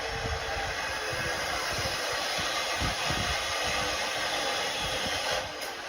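Steady hissing noise of a power cutter, such as an angle grinder, cutting through the leftover steel frame of a demolished balcony.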